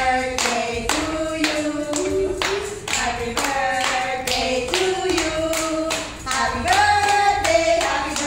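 Women's voices singing a tune together while clapping in time, about two claps a second.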